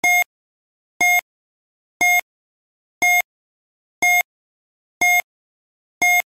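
Quiz countdown timer sounding seven short, identical electronic beeps, one a second, with silence between them as the seconds run down.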